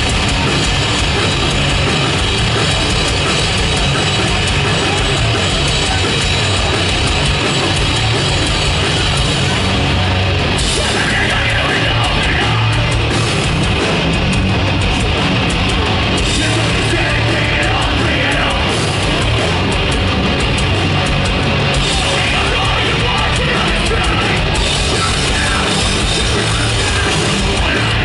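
Hardcore punk band playing loud and fast live, with distorted electric guitars, bass and a pounding drum kit at a steady, dense level throughout.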